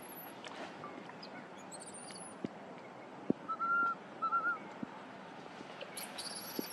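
Small birds calling over quiet forest background: thin high chirps at the start, around two seconds in and near the end, and two short whistled notes in the middle, with a few faint clicks.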